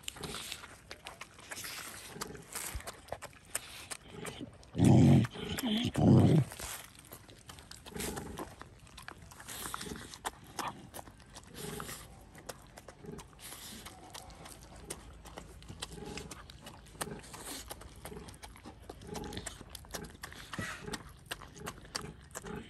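Dog eating rice from a plate: a run of small wet chewing, smacking and licking sounds. Two much louder sounds, each about a second long, come about five and six seconds in.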